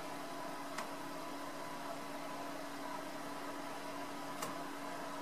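Steady hiss with a low hum, and two faint sharp clicks as the tweezers and soldering iron touch the parts on the circuit board while surface-mount components are soldered by hand.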